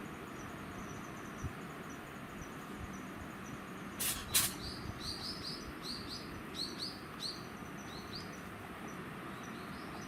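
A small bird chirping in runs of short, quick notes, about two or three a second. Two sharp noisy bursts come in quick succession about four seconds in, louder than the chirps.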